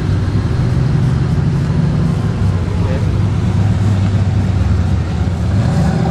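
Ford Mustang's engine and exhaust with a steady low rumble as the car rolls slowly past.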